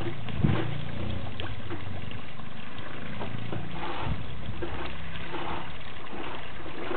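Steady outdoor ambience at a garden pond: a continuous hiss with a faint low hum underneath and small ticks of water now and then.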